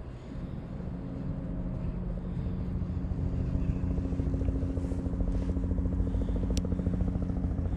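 A motor engine running steadily with a fast, even pulse, slowly growing louder, with one sharp click about six and a half seconds in.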